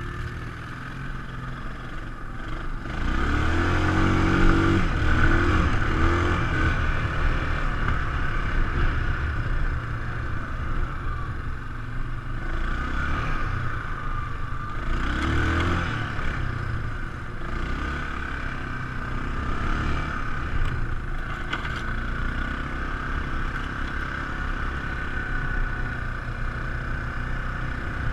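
ATV engine running under way, revving up and easing off twice, about three seconds in and again around twelve to sixteen seconds.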